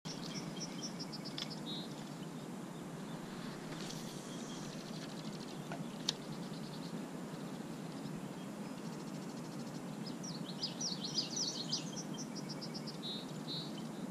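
Small birds singing: quick runs of high chirps and trills near the start and again from about ten seconds in, over a steady low outdoor rumble, with one sharp click about six seconds in.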